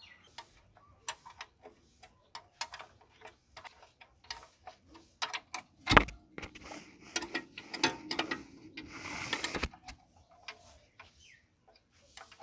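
Metal hand tools clinking and tapping against the bolts and housing of a tractor's transmission case while a spanner works the fittings: a string of sharp, irregular clicks, with one louder metallic knock about six seconds in and a brief scraping rush near nine seconds.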